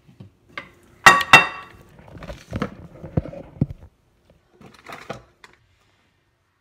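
Handling noise as a phone camera is picked up and carried: two sharp knocks about a second in, then a few seconds of bumps and rustling.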